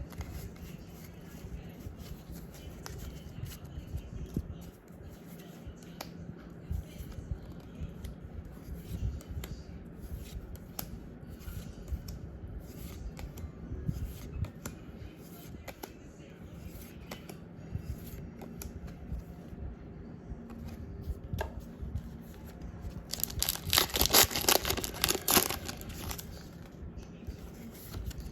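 Light handling of trading cards and packaging with small rustles and clicks, then a loud crinkling tear lasting a couple of seconds near the end as a foil Pokémon booster pack wrapper is ripped open.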